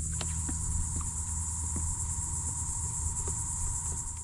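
Steady, high-pitched chorus of insects buzzing in mangrove scrub, with a low steady rumble underneath and a few faint scattered ticks.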